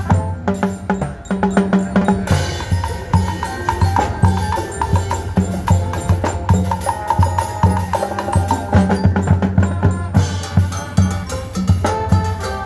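Percussion-led music: a fast, steady drum beat with sharp wood-block-like strokes, a pulsing bass and a pitched melody over it.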